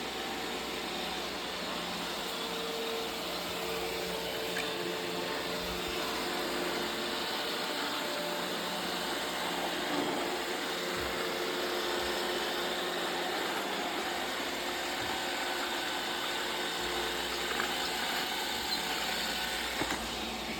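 Roomba robot vacuum running: a steady motor hum and brush whir, with a few light knocks near the end.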